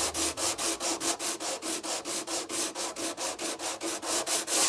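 Coarse 36-grit sandpaper wrapped around a piece of broomstick, sanding cured epoxy-and-microballoon filler by hand in quick back-and-forth strokes, about four a second.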